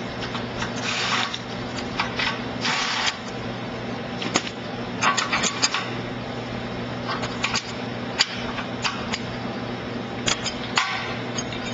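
A cordless drill driver runs in two short bursts, loosening a hose-clamp screw on a texture sprayer's fluid tube, followed by scattered metal clicks and clinks as the clamp is worked loose by hand, over a steady low hum.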